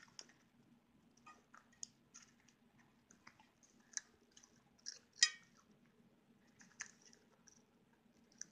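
Scattered faint crunches and clicks of popcorn: a small dog chewing popcorn off the table, and a child's fingers picking through popcorn and loose kernels on a metal tray. The loudest crunch comes about five seconds in.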